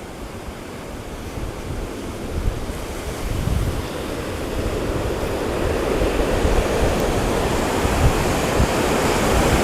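Ocean surf washing on the shoreline, with wind buffeting the microphone; the rushing noise swells gradually louder.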